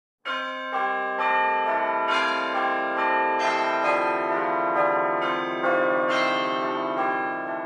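Bell-like chime music: a melody of struck, ringing notes, a new one about every half second, each ringing on under the next. It starts a moment in after silence and fades toward the end.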